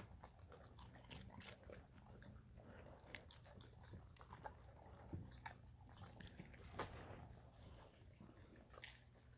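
Labrador retrievers chewing popcorn: faint, irregular crunches and clicks of dogs eating.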